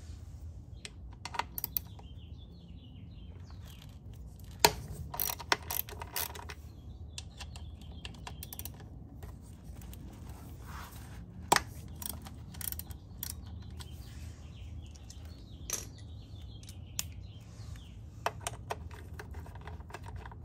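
Ratchet wrench clicking in short runs of sharp clicks as a bolt on a Honda Helix scooter's final drive case is loosened.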